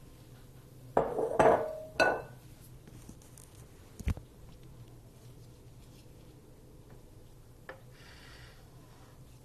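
A bowl and metal kitchen utensils clattering as they are set down: three ringing clanks about a second in, then a single dull thump a couple of seconds later.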